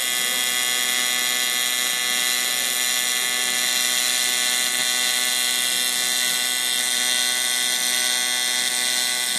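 Lincoln Electric Aspect 230 AC TIG arc welding 6061 aluminum at 125 Hz AC frequency and 70 balance: a steady, loud electric buzz that holds one pitch with a hiss over it.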